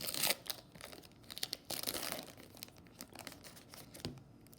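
Foil wrapper of a trading-card pack being torn open and crinkled, in crackling bursts over the first two seconds or so, then lighter rustling and a few clicks.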